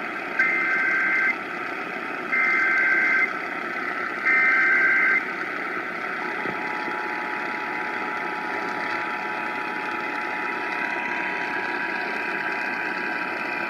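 Emergency Alert System broadcast over a radio with background hiss: three bursts of the SAME header's data tones, each about a second long with a second's gap between them, then, about six and a half seconds in, the steady two-tone attention signal begins and holds.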